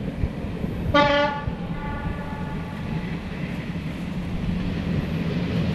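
Diesel-hauled train, a Czechoslovak class 749/751 locomotive, running with a steady low rumble. About a second in, the locomotive sounds its horn once: a single-pitched blast that starts loud and trails off over about a second and a half.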